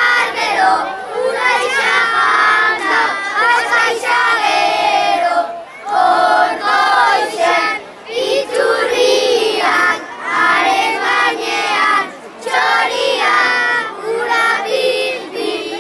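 A crowd of children singing together in unison, in short phrases with brief breaks between them.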